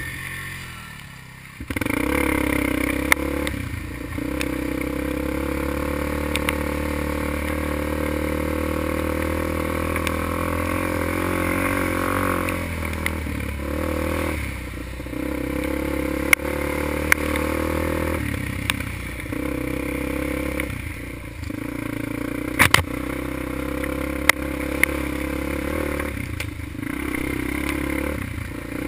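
Honda 400EX sport quad's single-cylinder four-stroke engine pulling under throttle on a dirt trail, picking up about two seconds in and then easing off and rising again every few seconds. A few sharp clacks as the quad jolts over bumps.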